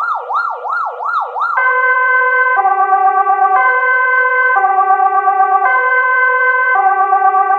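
Electronic ambulance siren in a fast yelp, its pitch sweeping up and down a few times a second. About a second and a half in it switches to a two-tone hi-lo, alternating a high and a low tone about once a second.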